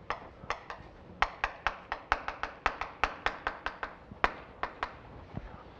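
Chalk tapping and clicking against a blackboard while characters are written: a quick, irregular run of sharp taps, about four a second, that stops about five seconds in.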